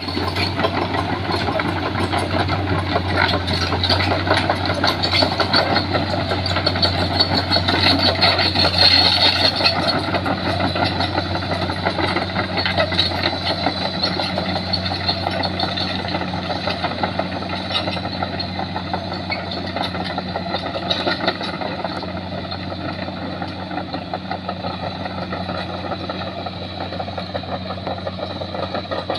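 Komatsu crawler excavator's diesel engine running as the machine tracks away, with a steady low hum and its steel tracks clattering; the sound grows gradually fainter over the second half.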